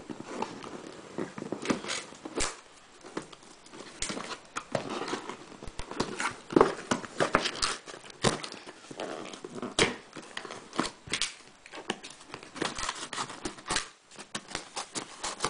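Hands picking at packing tape and prying the flaps of a cardboard shipping box: irregular scratching, crinkling and tearing with sharp clicks of cardboard and paper.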